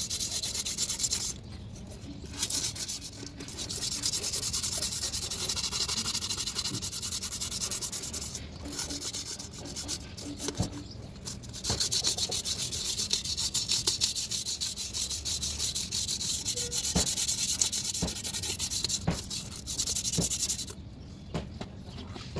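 Fast, continuous abrasive rubbing strokes, like a part being scrubbed or sanded by hand. It breaks off briefly a few times and stops shortly before the end.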